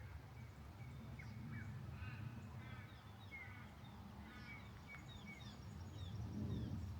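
Several birds calling: a string of short, high, falling chirps repeating about twice a second, with a few fuller, rougher calls in the first half. A low rumble runs beneath and swells near the end.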